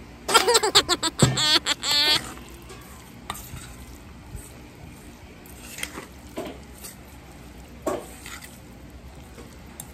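Metal spoon stirring and scraping raw ground-pork filling in a stainless steel bowl, over the steady sizzle of a frying pan in the background. The first two seconds are the loudest, a burst of clatter with a high wavering squeal; after that the stirring goes on with a few short scrapes.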